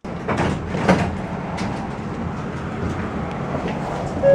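Tram interior: two clunks about half a second and a second in, then the tram's steady running noise as it pulls away from the stop.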